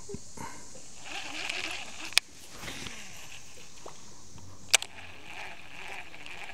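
Fishing tackle being handled in a small boat: two sharp clicks about two and a half seconds apart, with soft rustling and splashy handling noise between them, over a steady high hiss.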